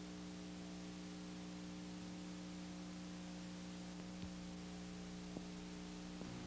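Steady electrical hum with faint hiss on an old videotape soundtrack, with a couple of faint clicks a few seconds in.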